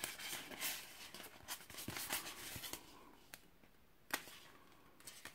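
Cotton tenugui cloth rustling and rubbing as it is knotted and adjusted around a styrofoam mannequin head, with a single sharp tap about four seconds in.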